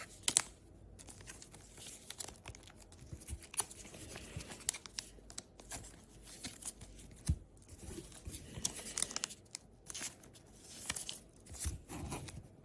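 Trading cards being slid into plastic card sleeves: light plastic rustling and crinkling with scattered small clicks and taps as the cards are handled.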